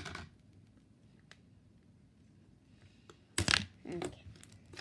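Near quiet, then two short handling noises, about three and a half and four seconds in, as a slime is handled.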